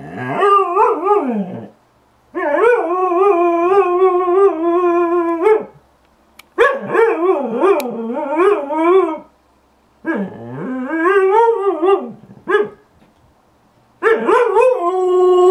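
A husky howl-whining in five long, warbling calls with short pauses between them, the pitch wavering up and down within each call and sliding down at its end.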